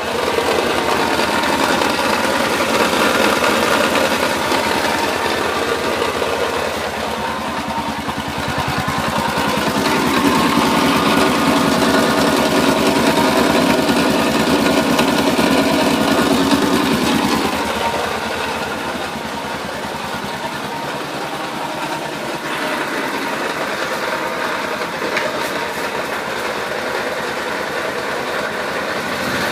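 Honda TRX650 ATV engine running steadily, louder for several seconds in the middle, with the extraneous grinding noise whose cause the owner cannot identify.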